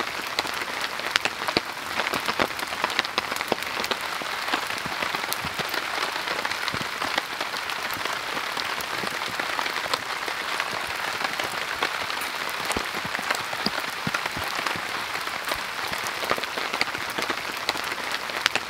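Heavy rain falling steadily: a dense hiss full of sharp individual drop strikes, loud enough to drown out speech.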